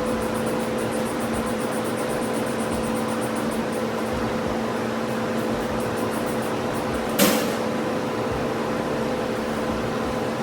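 Steady machine hum with a few held tones, like a running fan or blower, and one sharp knock about seven seconds in.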